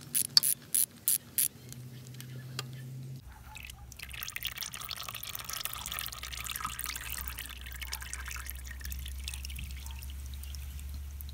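A few quick clicks at the start, then hot used engine oil from a KTM 690 single draining in two streams out of the crankcase drain-plug hole and oil-screen hole, trickling and dripping into a drain pan.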